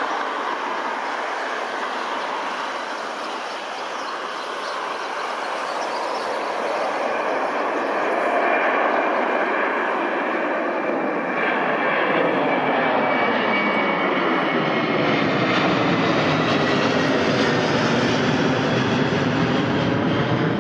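Airbus A330-200 twin turbofan jet engines at take-off thrust as the airliner climbs out and passes overhead. The noise swells in the second half, and a thin engine whine falls slowly in pitch as the aircraft goes by.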